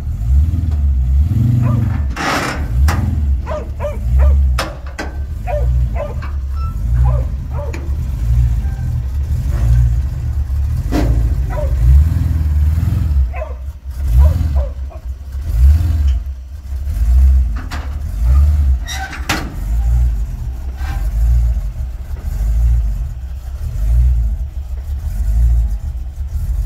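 Car engine running, its deep rumble swelling and fading every second or two, with scattered clicks and knocks.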